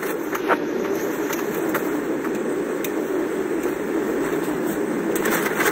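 Steady vehicle noise heard from inside a car's cabin, a constant even rush with no change in pitch.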